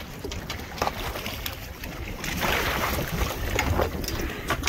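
Water splashing as a hooked amberjack is scooped into a landing net at the boat's side, with a surge of splashing about halfway through and a few sharp clicks, over wind rumble on the microphone.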